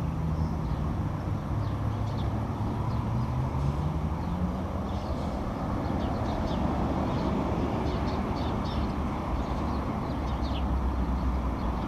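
Steady low rumble of road traffic, one engine note rising a couple of seconds in, with short, faint, high-pitched screams of swifts flying around.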